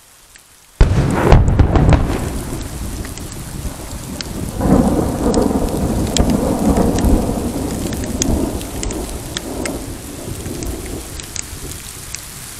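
Thunder: a sudden loud crack about a second in, then rolling rumbles that swell again near the middle and slowly fade. Rain falls throughout, with scattered sharp drop ticks.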